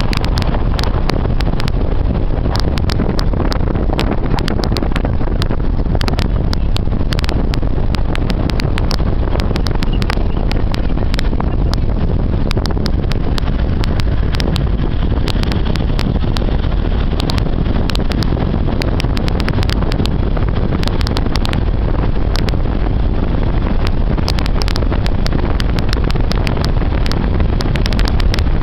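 Steady rumble of a moving vehicle on the road, with wind blowing on the microphone and frequent crackling clicks throughout.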